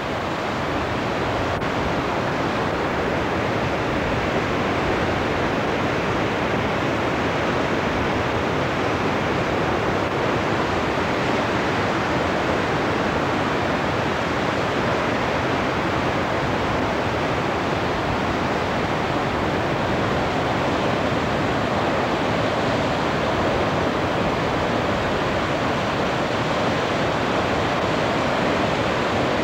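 Ocean surf breaking, a steady unbroken wash of noise.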